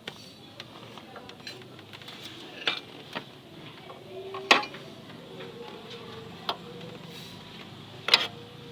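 Metal tools clinking and knocking against metal parts during car repair work: a few sharp, ringing metallic clinks at irregular intervals, the loudest about halfway through and near the end.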